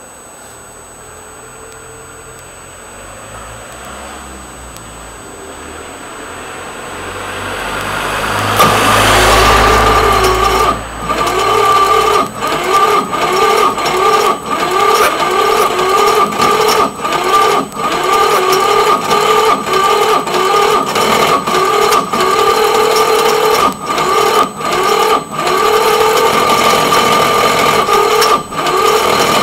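Cold start of a twin-cylinder diesel motorbike engine: after a quieter build-up, a loud, steady mechanical whirr with a regular pulse starts suddenly about eight seconds in. It dips briefly now and then.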